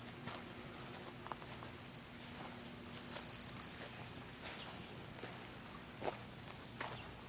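An insect trilling in one steady high tone, breaking off briefly about two and a half seconds in and again about five seconds in. Occasional soft footsteps on grass and dirt.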